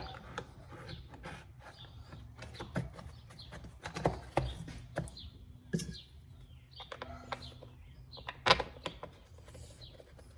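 Clicks and knocks of the plastic top cover being fitted onto a Husqvarna 136 chainsaw and handled on the bench, with one louder knock near the end, while birds chirp in the background.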